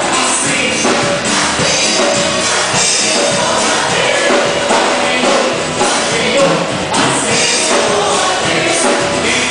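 Live worship music: a congregation singing along with a band of voices, acoustic guitar, bass and drums, with a steady beat.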